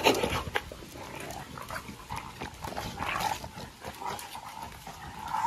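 Bully-breed dogs play-wrestling and tugging on a cloth: scuffling and irregular dog noises, with a louder burst right at the start.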